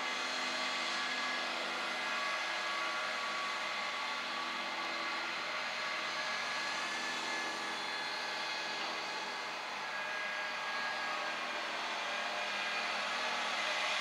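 Case tractor's diesel engine running steadily under load as it pulls a disc harrow past, with a constant mechanical drone, growing a little louder near the end.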